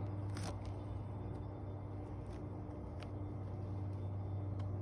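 A steady low mechanical hum with a faint higher tone over it, and a few faint light clicks scattered through it.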